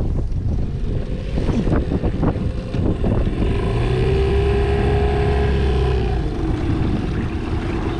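A motorboat engine running with wind and water noise. Its steady tone is strongest from about three to six seconds in and then drops slightly in pitch.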